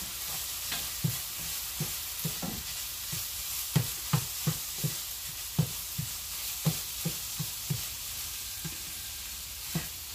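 Ground meat sizzling in a frying pan while a utensil stirs and chops it up, scraping and knocking against the pan in irregular strokes about twice a second, over a steady frying hiss. The knocks pause for a moment near the end.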